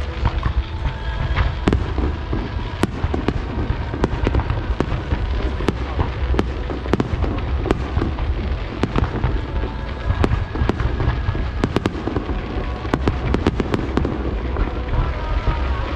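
Fireworks display: an irregular run of sharp bangs and crackles over a continuous low rumble, coming thickest near the end.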